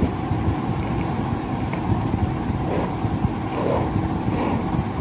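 Steady low rumbling background noise, with faint scrapes and ticks of a metal spoon stirring milk into flour in a plastic bowl.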